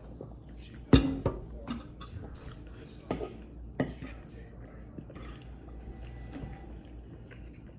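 Utensils knocking and clinking against dishes while eating, a few sharp strikes with the loudest about a second in.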